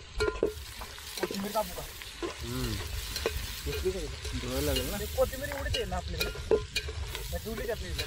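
Metal spoon stirring and scraping frying onion-tomato masala in an aluminium pot, with repeated clinks against the pot and a steady sizzle.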